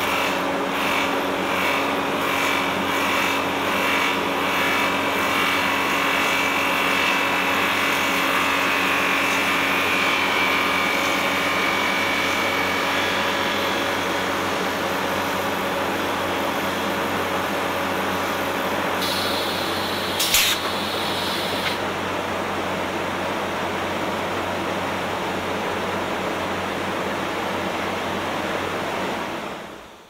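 Wood lathe running steadily, with a light pulsing about twice a second in the first few seconds. About twenty seconds in there is a brief hiss with a sharp knock, and near the end the sound fades out.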